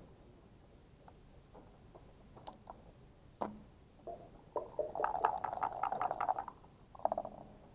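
Backgammon checkers and dice clicking on the board during play: a few separate clicks at first, then a rapid run of clicks lasting about a second and a half from about halfway through, and a short burst of clicks near the end.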